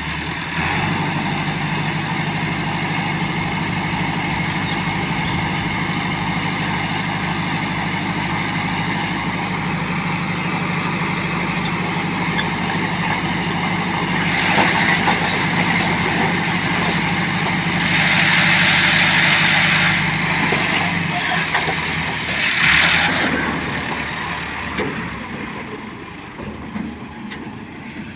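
Massey Ferguson 385 tractor's diesel engine running at raised revs to drive the hydraulic lift, tipping the loaded trailer. A few louder rushing bursts come through over the middle of the stretch, and the engine's low hum falls away near the end.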